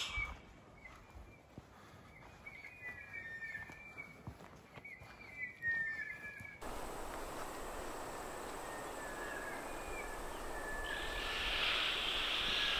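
Faint bird calls: thin whistled notes gliding downward. About six and a half seconds in, a steady rushing noise takes over, with the faint calls still under it and a brighter hiss swelling near the end.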